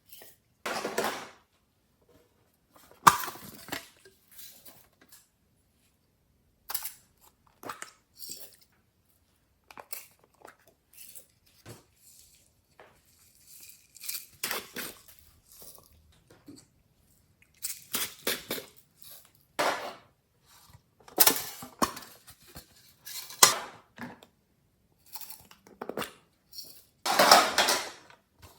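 Glossy slime with clay and beads mixed in, squished and pressed by hand: irregular wet crackles, squelches and pops in short bursts with quiet gaps between, some louder than others.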